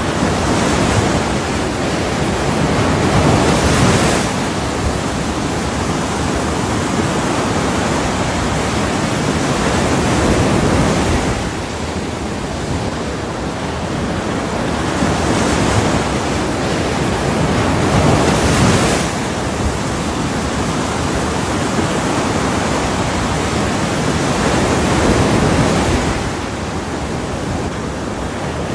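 Ocean waves breaking on a shore as a continuous wash of surf, swelling and easing every several seconds.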